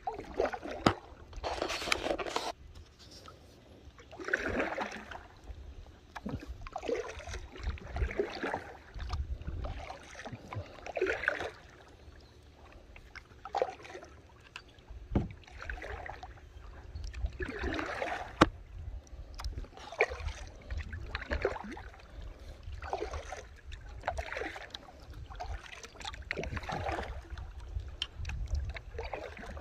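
Kayak paddle strokes through lake water, a splashing swish about every second and a half to two seconds, over a steady low rumble. A couple of sharp knocks stand out, one about fifteen seconds in and one about eighteen seconds in.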